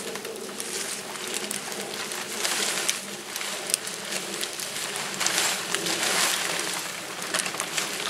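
Nylon tent fabric rustling as it is lifted and handled while a tent pole is worked into it, with scattered light clicks; the rustling swells twice, about two and a half and five and a half seconds in.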